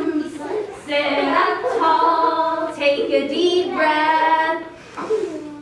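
Child and female voices singing a slow tune in long held notes, with a short break near the end.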